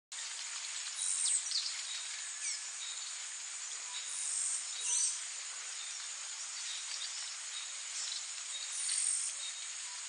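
Steady high-pitched insect trilling from crickets or similar insects, with short, high bird chirps and calls breaking in about half a dozen times.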